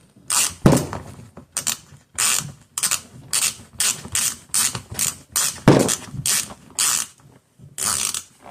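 A ratcheting hand tool working in short, quick strokes, about two a second, as a wheel nut is run onto an RC car's wheel, with two heavier knocks among them.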